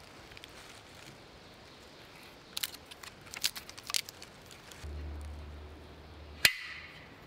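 Dry bark on a dead cherry tree crackling in a few sharp snaps as it is picked off by hand. Near the end comes one loud, sharp metallic click with a brief ring as a bow saw is handled.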